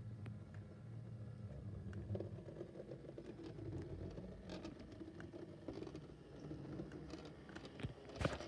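Model Class 153 railcar running along the track: a faint low motor hum with light, irregular clicks of the wheels on the rails, and a couple of sharper clicks near the end.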